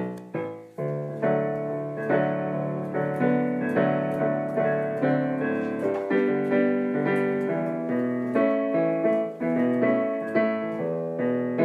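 Solo piano music: a steady run of struck notes and chords, each one ringing and dying away before the next.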